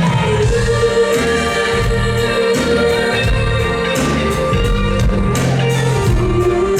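Live pop song: a female lead vocal holds long notes over a full band with drums and backing vocals, moving to a slightly lower held note near the end.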